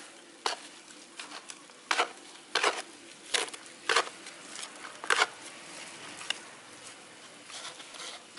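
A small hand scoop scraping and stirring a dry potting mix of soil, pig manure and rice husks in a plastic basin: a series of irregular scraping strokes, roughly one a second, growing fainter after about six seconds.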